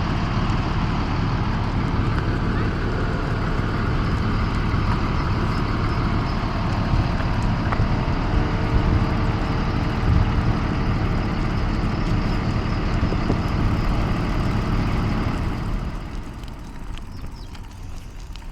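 School bus engine running steadily, with a low rumble. It grows quieter about sixteen seconds in.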